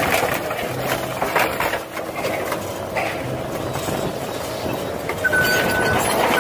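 Tracked CAT excavator working scrap cars: the engine runs steadily under some metal clanks from the scrap. About five seconds in, a backup alarm starts beeping.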